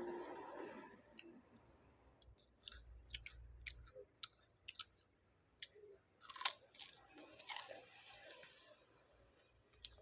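Close chewing and crunching of food in the mouth: scattered soft crunches and wet clicks, with one louder crunch about six and a half seconds in.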